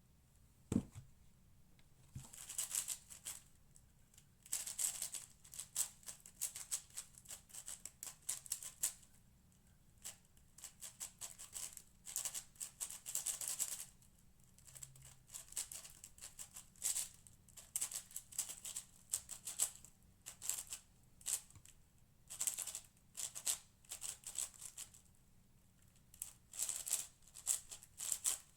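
Cosmic Shadow M 6x6 speedcube being turned fast during a solve: bursts of rapid clicking and clacking layer turns, a second or two at a time, with short pauses between. A single thump about a second in.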